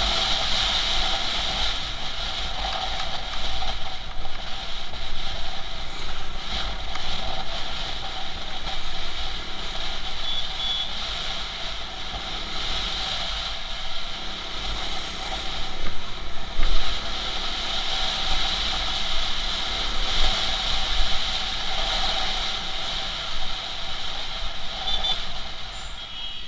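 Motorcycle riding through city traffic: engine running and steady wind noise on a handlebar-mounted camera, with two short high beeps, about ten seconds in and near the end.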